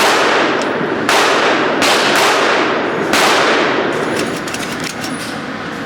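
Gunshots fired at a shooting range: three sharp shots in the first few seconds, roughly a second apart, each with a long echoing tail.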